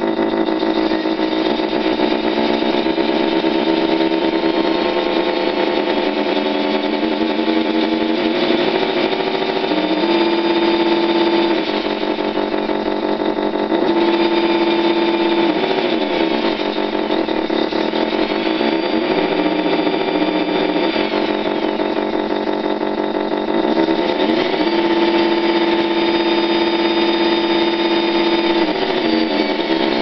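Electronic engine-sound module in a model Springer tug, playing a steady engine idle through its small speaker. Several times the engine pitch glides up, holds for a few seconds as if throttled up, then drops back to idle.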